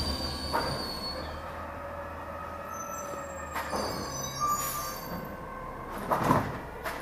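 Automated side-loading garbage truck running slowly, with a steady low engine hum and high held squealing tones. Two short knocks, about three and a half and six seconds in, are the loudest moments.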